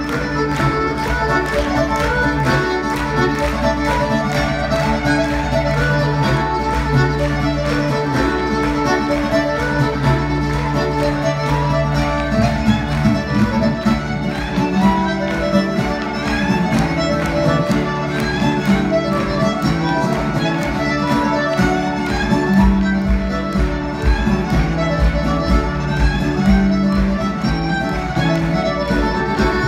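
Irish traditional music played live by a band, fiddle leading over guitar accompaniment.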